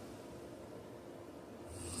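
A sleeping man's snoring, caught in the pause between two loud snores: a faint steady hum, then the next snore starting to rise near the end.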